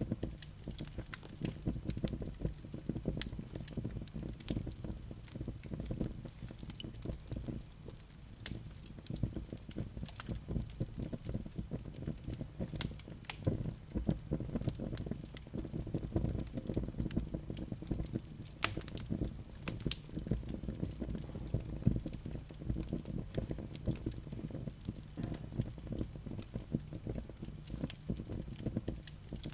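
Wood fire burning in a fireplace: a low steady rumble of flames with irregular sharp crackles and pops throughout, a few louder pops standing out.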